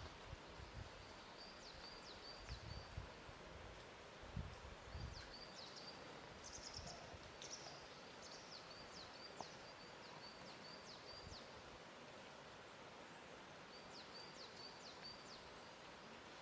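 Quiet lakeside ambience: a soft steady hiss with gentle low lapping of water against the shore, and a small bird calling in several short runs of quick high chirps.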